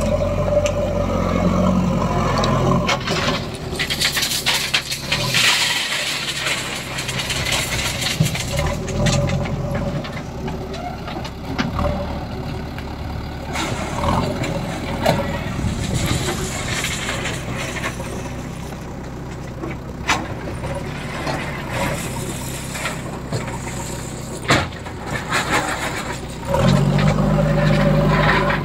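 JCB 3DX backhoe loader's four-cylinder diesel engine running under load as it lifts and tips a bucket of gravel into a steel tipper body, with stones rattling and pouring and a few sharp knocks. The engine revs up louder near the end as the loaded bucket is raised.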